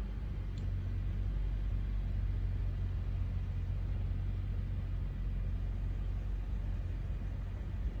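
Snowstorm wind blowing steadily, heard mostly as a low rumble of wind buffeting the microphone.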